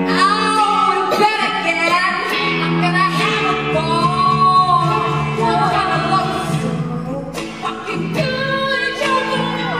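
A woman singing live with full voice, holding long sung notes, over her own electric guitar playing (a white Stratocaster-style guitar).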